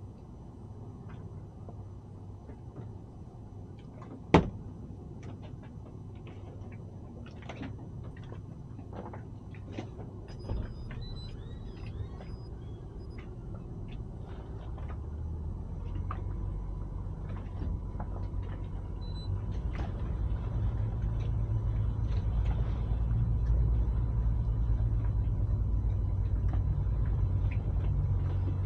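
Boat engine idling with a low rumble that grows louder from about halfway through. A single sharp knock about four seconds in, with scattered small clicks and knocks around it.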